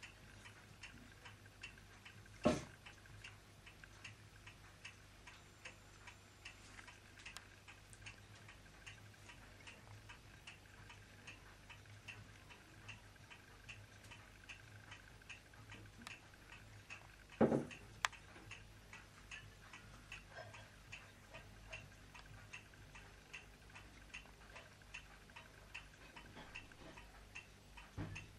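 A clock ticking steadily and faintly, about two ticks a second, with two loud knocks, one a few seconds in and one a little past halfway.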